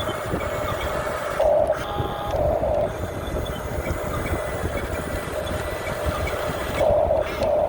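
Huina 1569 RC bulldozer's electric drive motors and gearboxes whining as it runs, growing louder in surges about a second and a half in, around two and a half seconds in, and again near the end.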